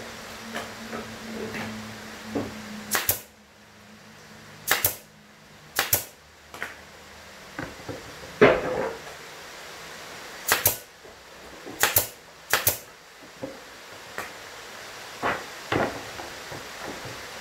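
Pneumatic brad nailer driving F-type nails into a plywood speaker cabinet: six sharp double-snap shots in two groups of three. Softer knocks of the wooden panels come between them, with one louder, duller knock about halfway through.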